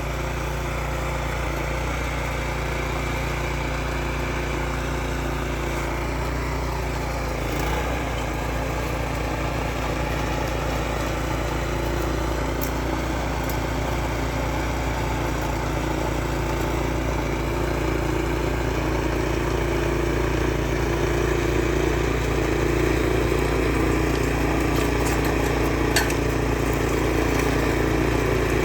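Snow blower engine running steadily, growing a little louder over the last part, with one sharp click near the end.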